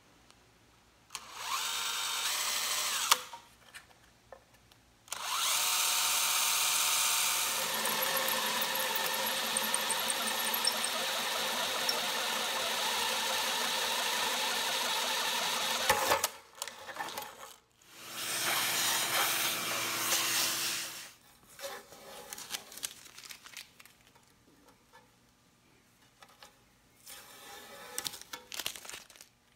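Cordless drill running in three bursts as it cuts a hole through the sheet-steel transformer case: a short run about a second in, a long steady run of about ten seconds, then a shorter run, followed by a few light clicks and knocks.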